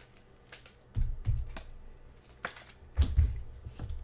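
Trading cards being handled and set down on a table: scattered light clicks and snaps, with two soft thumps, about a second in and about three seconds in.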